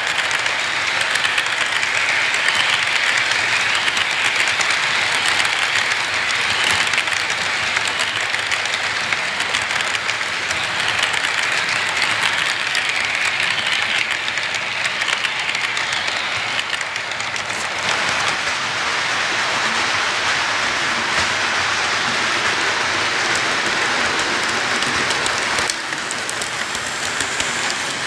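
Model train freight cars rolling past, their wheels giving a steady, dense rattle and clicking on the track.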